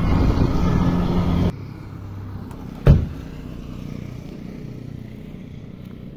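A road vehicle's engine running under heavy rumbling noise, cut off abruptly about a second and a half in. Then one sharp knock, followed by quieter roadside background.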